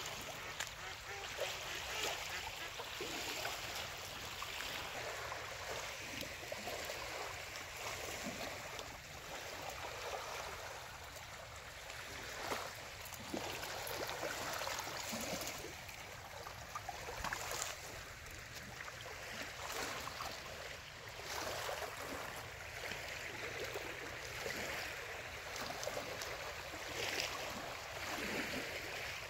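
Small waves lapping on a rocky lake shore: a steady wash of water with a few brief louder splashes.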